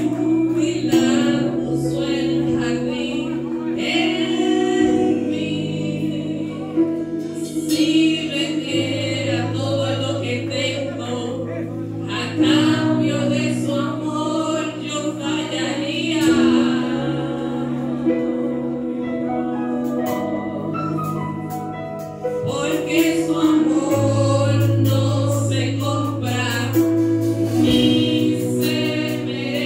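Live gospel worship music: a woman sings lead into a microphone with backing voices, over held keyboard chords and a drum kit, with cymbal strokes growing busier in the last third.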